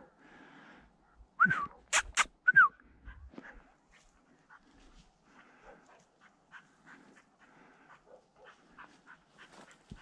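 Pointer dog giving two short, high whines about a second apart, with two sharp clicks between them that are the loudest sounds. After that, only faint rustling in dry grass and brush.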